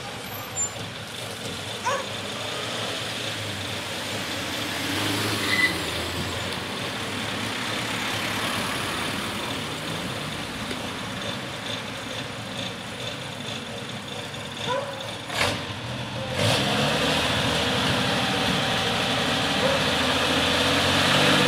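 Star 266 fire engine's six-cylinder diesel running at low revs with the truck nearly stationary, then working harder and louder from about two-thirds of the way through as it pulls away. A few short clicks and brief squeaks break in along the way.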